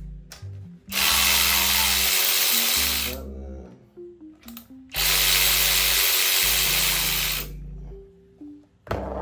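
Cordless power tool run twice, about two seconds each time, spinning out the rocker arm bolts on a 5.3 LS V8, over background music.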